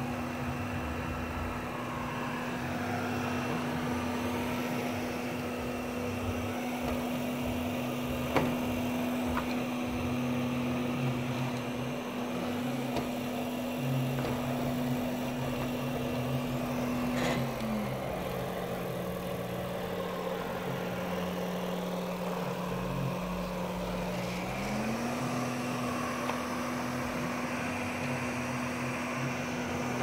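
Samsung CycloneForce robot vacuum running, a steady motor hum that drops in pitch a little past halfway and climbs back about seven seconds later. Two brief clicks, one about eight seconds in and one just as the pitch drops.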